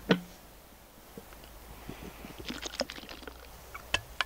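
Small handling noises close to the microphone: a sharp click just after the start, then a cluster of light clicks and rustles past the middle, and two more sharp clicks near the end.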